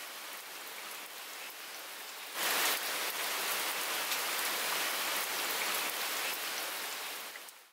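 Steady rain falling. About two and a half seconds in it abruptly becomes louder and brighter, stays steady, then fades out at the very end.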